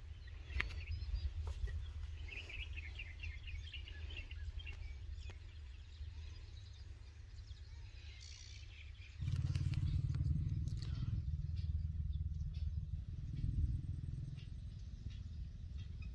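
A steady low rumble that gets suddenly louder about nine seconds in, with small birds twittering in quick chirps a few seconds in and again just before the rumble rises.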